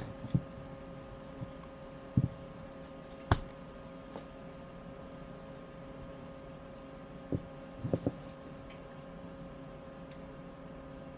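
Tarot cards being handled and laid on a table: a few short light taps and knocks, two of them close together about eight seconds in, over a faint steady hum.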